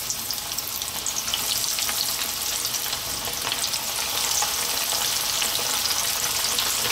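Chicken wings coated in corn flour deep-frying in oil in a wok: a steady sizzle with a dense crackle of tiny pops.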